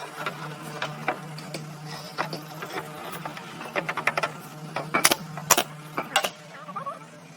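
Irregular sharp knocks and taps, several loud ones about five seconds in, over a steady low hum.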